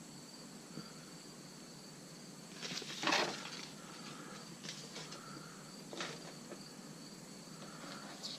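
Faint rustling and handling of the mount's packaging and paper contents, with the strongest rustle about three seconds in and shorter ones around five, six and eight seconds. A steady faint high-pitched tone runs underneath.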